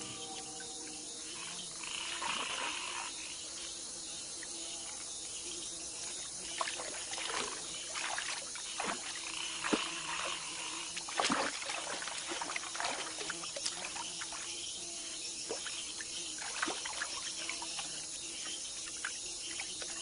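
Tropical night chorus of insects and frogs calling steadily, with scattered sharp clicks from about six seconds in.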